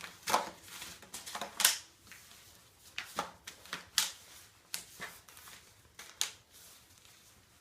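Irregular sharp clicks and knocks, about a dozen spread over several seconds, from a knee hockey net frame being handled and set up.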